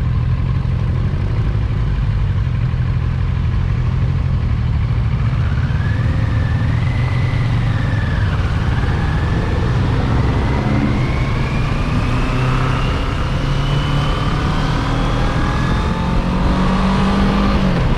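Motorcycle engine and wind noise while riding, a steady low rumble throughout, with the engine note climbing steadily through the second half as the bike accelerates.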